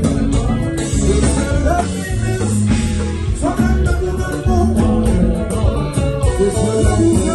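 Live band playing Haitian kompa: male singing over electric guitar, bass and drums with a steady beat.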